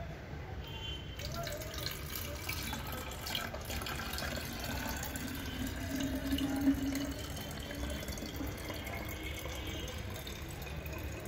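Sample water trickling and splashing as it is poured in a thin stream from a plastic cup into the narrow neck of a plastic sample bottle. It starts about a second in and runs on steadily.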